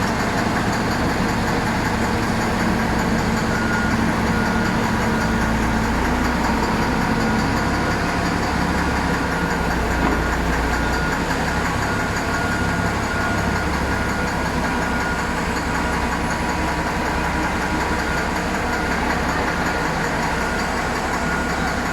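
Komatsu HD785-7 dump truck's V12 diesel engine running steadily, with its low rumble growing stronger for a few seconds midway. The engine is knocking, the fault blamed for its black smoke and low power.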